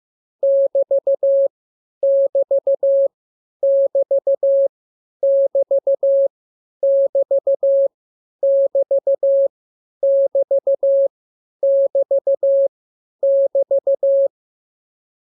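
Morse code practice tone: a steady single-pitch beep keyed in dots and dashes, sending the same short character group over and over about every second and a half, with a longer gap near the end.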